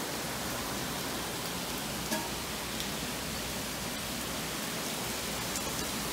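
Heavy rain pouring down in a steady, even hiss, with one brief louder tap about two seconds in.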